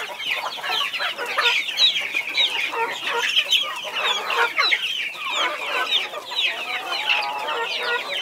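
A brood of chicks peeping nonstop as they feed: many short, high, falling chirps overlapping. Lower clucks from a hen come now and then.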